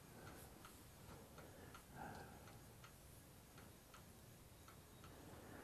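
Near silence, room tone with a faint, regular ticking, like a clock ticking in the room.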